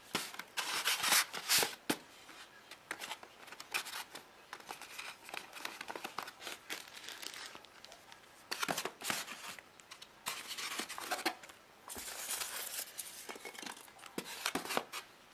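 Paper booklets and brochures being handled and slid back into a styrofoam packing box, rustling and scraping in irregular bursts.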